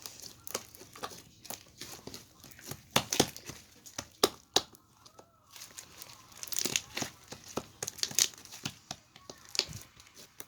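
Slime being squeezed and stretched by hand, making irregular clicking pops and crackles.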